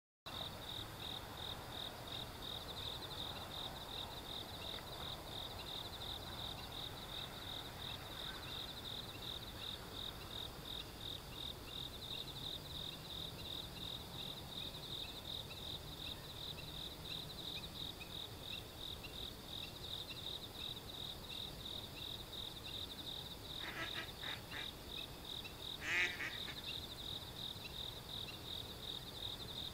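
Insects chirping in a steady, fast pulsed trill throughout. Near the end comes a short series of duck-like calls from an eastern spot-billed duck, then a single louder bird call.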